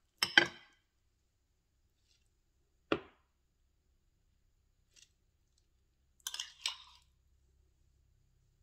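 A metal spoon clinking and scraping against a ceramic bowl and plate while scooping and spreading mashed avocado. There are a few short knocks: a cluster just after the start, one about three seconds in, and a quick pair about six and a half seconds in.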